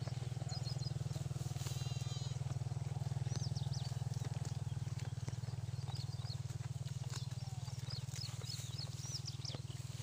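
Outdoor field ambience: a steady low rumble, with short high-pitched chirps scattered throughout.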